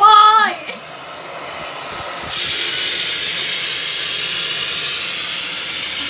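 A woman's short frightened squeal, then a cordless stick vacuum cleaner that jumps suddenly to a loud, steady, high hiss about two seconds in and keeps running, its nozzle held against a cheek.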